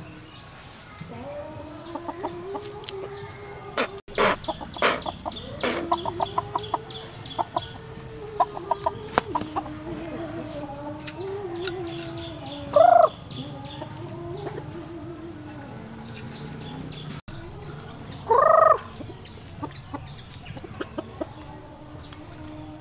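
A rooster clucking in low, wavering grumbles, breaking twice into a short, loud squawk-like call, once midway and once later on. Scattered light clicks and taps come in the first third.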